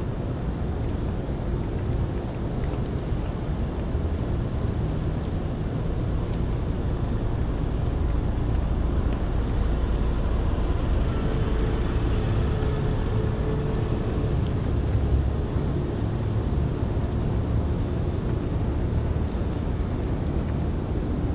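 Outdoor background noise: a steady low rumble that swells a little in the middle, with a faint hum coming and going.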